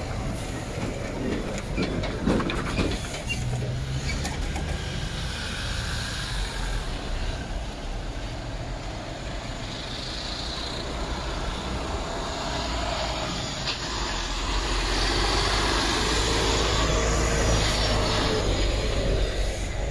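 Heavy lorry engines running as trucks move past, a steady low rumble that gets louder about two-thirds of the way through.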